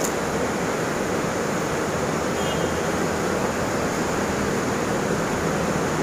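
Steady rushing noise of a waterfall close by.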